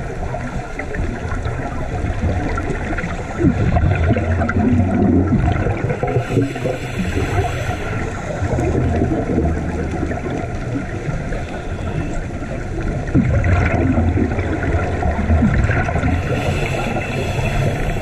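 Water gurgling and bubbling over a steady low rumble, swelling every few seconds.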